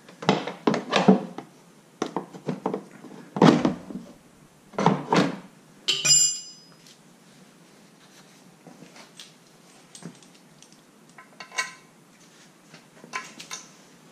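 Metal hand tools clunking and clinking as they are handled, with one ringing metallic clink about six seconds in. After that only a few faint taps follow.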